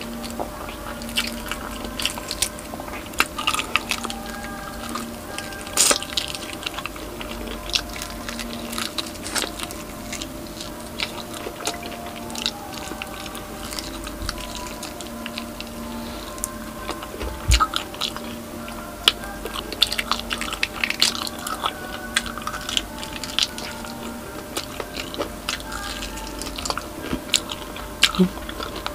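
Close-miked biting, crunching and chewing of crispy deep-fried pork knuckle skin (crispy pata), with many sharp crackles throughout.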